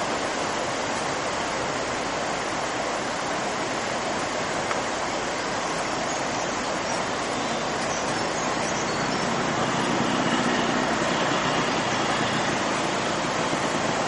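Whitewater river rapids rushing: a steady roar of churning water, a little louder about ten seconds in.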